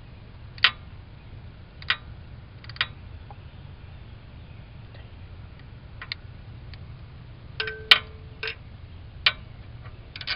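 A half-inch ratchet and socket on an extension turning the turbo's banjo bolt, giving a few sharp, separate metallic clicks a second or so apart. About eight seconds in there is a short cluster of clicks with a brief ringing note.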